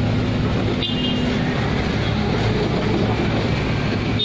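Steady rumble of heavy diesel engines from an excavator and a dump truck working together, with a brief high squeak about a second in.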